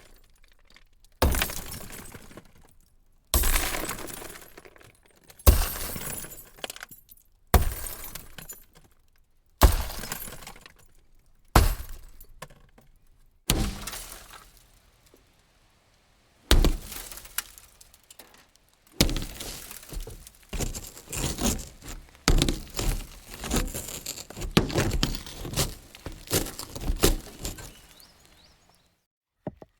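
Glass smashing: a series of single sharp crashes about two seconds apart, each fading out, then a longer stretch of many crashes and clattering through the last ten seconds.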